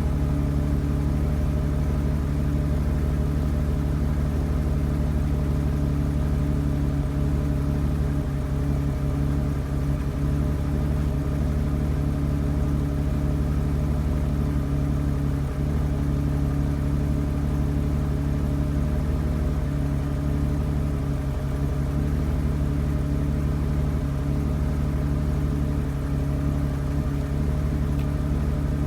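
BMW E32 750's M70 V12 engine idling roughly: a steady running note with small, irregular dips in loudness. The owner suspects it is running rich, having found the spark plugs wet and sooty.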